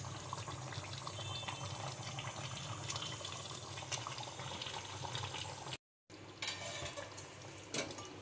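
Hilsa and brinjal curry simmering in a pan on a low gas flame: a steady bubbling hiss with a low hum underneath. It breaks off for a moment about six seconds in.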